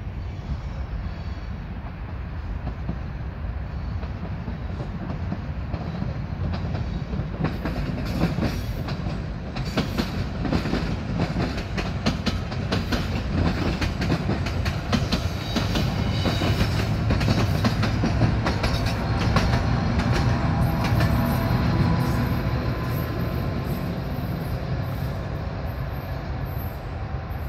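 A train rolling by on the rails: a steady low rumble, with rapid wheel clicks over rail joints starting about eight seconds in and a thin high wheel squeal in the last few seconds.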